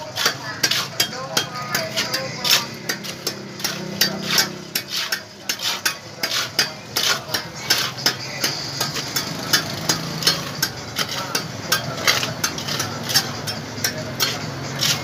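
Steel trowels scraping and tapping in wet cement mortar, a quick irregular run of sharp clicks and scrapes.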